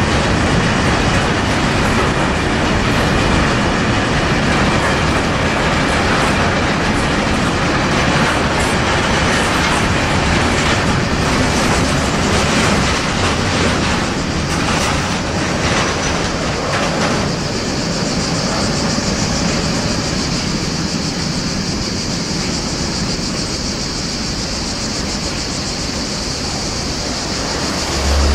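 Intermodal container freight train rolling past, its wagons rumbling and clattering over the rail joints. Past the halfway point the clatter eases as the last wagons go by, and a steady high hiss comes up.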